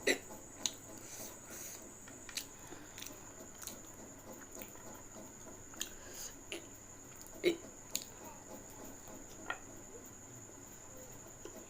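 A person eating: chewing and mouth sounds with a dozen or so short, scattered clicks and smacks, over a steady faint high-pitched whine.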